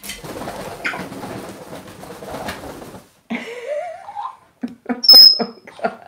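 African grey parrot scuffling and flapping for about three seconds, then giving a rising squawk followed by a quick run of short clipped calls, with a piercing high whistle about five seconds in.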